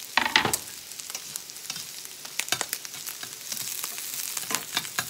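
Fried rice with egg sizzling in a hot stainless steel pan while a metal spatula stirs it, scraping and clacking against the pan in irregular sharp knocks over a steady hiss. The loudest knocks come just after the start.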